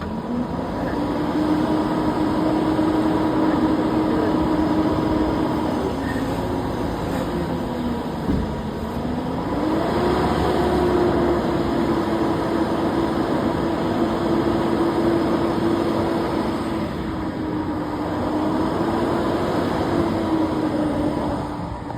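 Garbage truck engine running at raised revs, its pitch climbing at the start, dipping briefly about eight seconds in, then rising and holding again.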